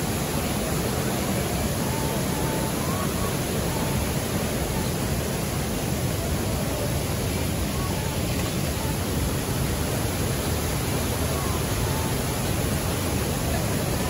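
Steady rushing of a waterfall and fast, churning river water, an even unbroken noise with no pauses. Faint distant voices sit under it.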